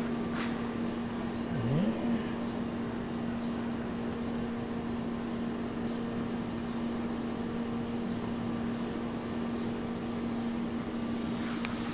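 A steady machine hum over a faint background hiss, with a brief dip and rise in pitch just under two seconds in.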